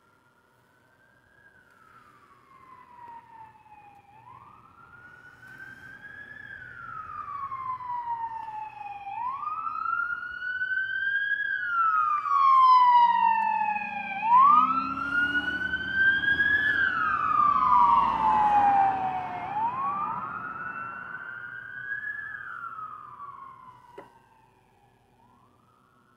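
Emergency vehicle siren wailing, each cycle rising quickly and then falling slowly, about once every five seconds. It grows louder as the vehicle approaches, passes close with a low rumble of the vehicle beneath it, then fades away.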